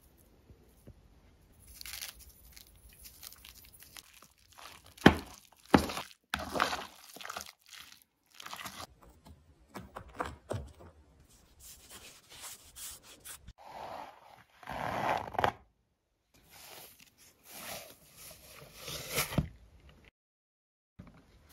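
Hands at work on food: irregular rubbing, scraping and tearing-like sounds of ingredients, flour and soft yeast dough being handled on a wooden cutting board, with two sharp knocks about five and six seconds in.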